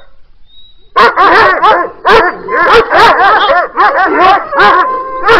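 Several dogs barking rapidly and overlapping, starting about a second in after a short quiet spell. A drawn-out steady note joins the barking near the end.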